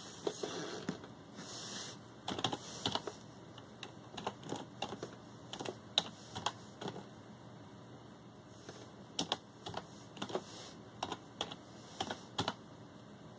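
Computer keyboard keystrokes typed one-handed: single clicks at an uneven, slow pace, in short runs with pauses between. A short rustle of handling noise comes before the first keystrokes.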